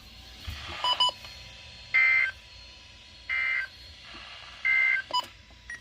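NOAA Weather Radio sending the SAME end-of-message code after a severe thunderstorm warning: three short bursts of two-tone digital data, about a second and a half apart. Short electronic beeps come about one second in and again near the end.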